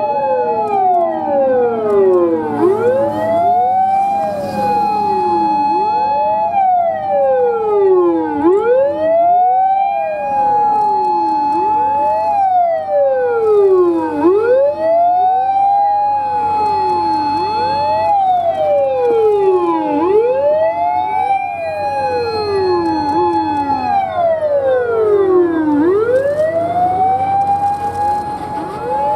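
Several Japanese fire engines in convoy sounding wail sirens. Each siren climbs to a held high note, then slides down, and the sirens overlap out of step with one another. Truck engines hum underneath.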